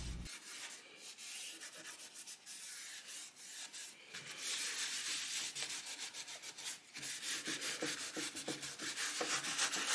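Cloth rag rubbing over a chalk-painted, waxed wooden tabletop, wiping off the excess dark wax: uneven rubbing strokes, soft at first and louder from about halfway on.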